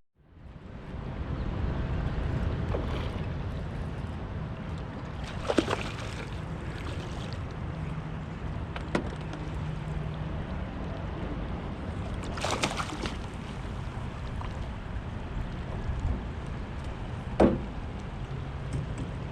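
Steady low rumble of wind and water around a small boat on a river, with a few sharp knocks.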